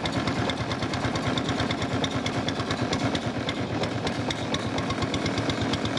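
Motorboat engine running steadily at cruising speed, with a rapid, even beat.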